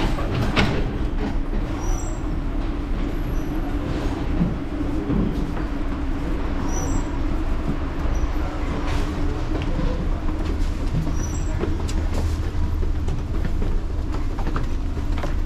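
Subway station ambience: a steady low rumble of a metro train in the station, with faint short high-pitched chirps every few seconds and a few sharp knocks.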